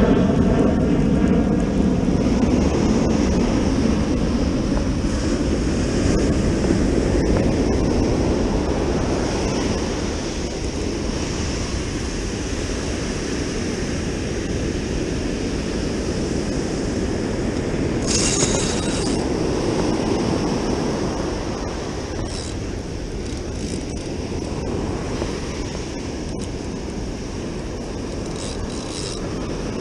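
Ocean surf washing up the beach, with wind buffeting the microphone. A passing aircraft's engine note falls in pitch and fades out over the first couple of seconds.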